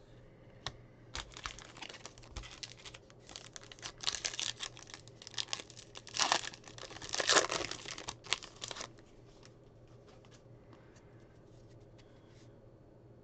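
Foil wrapper of a 2021 Donruss baseball card pack crinkling and tearing as it is ripped open by hand. The crinkling is loudest a little past halfway and stops about nine seconds in.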